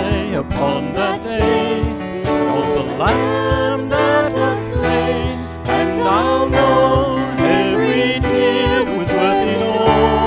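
Congregation singing a slow worship song together, led by a band with strummed accompaniment.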